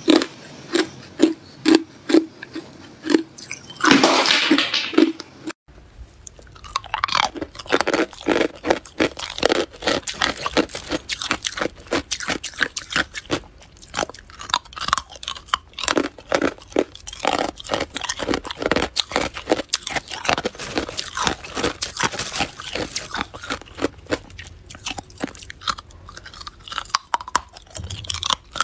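Close-up crunching of ice being chewed: first hard clear ice in regular chomps about two a second, with a longer grinding crunch about four seconds in. After a break near six seconds it turns to dense, rapid crunching of crushed ice.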